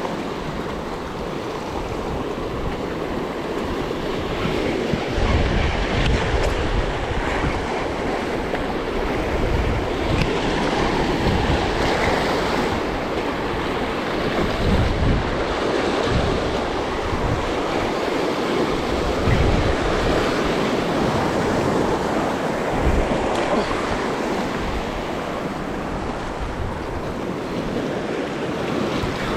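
Sea surf washing steadily, with wind buffeting the microphone in irregular gusts.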